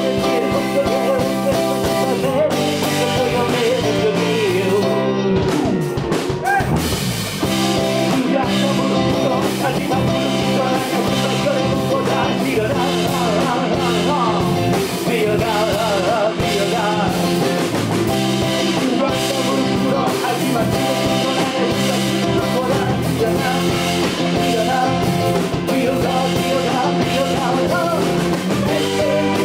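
Live blues-rock band playing: electric guitar, electric bass and drum kit, steady and loud, with a voice on the microphone over it at times.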